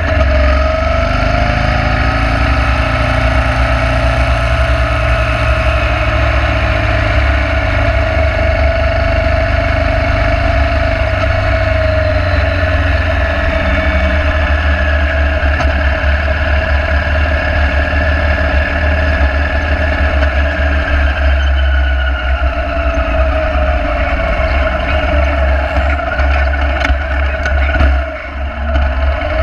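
Motorcycle engine running steadily at road speed, under a heavy low rumble of wind on the microphone. The engine note rises and falls gently, and the sound dips briefly near the end.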